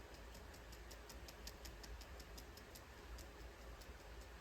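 Near silence with a faint, regular ticking, several ticks a second, like a clock ticking in a quiet room.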